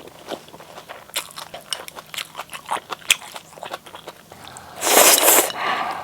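Close-miked mouth sounds of eating Buldak seaweed ramyeon noodles: chewing with many small wet clicks, and one louder, noisier burst a little before five seconds in, like a slurp.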